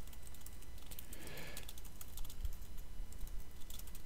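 Typing on a computer keyboard: a run of quick, uneven key clicks.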